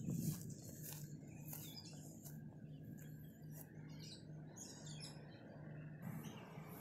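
Small birds chirping and twittering in the trees, in many short high calls scattered throughout, over a faint steady low hum. A brief low bump comes right at the start.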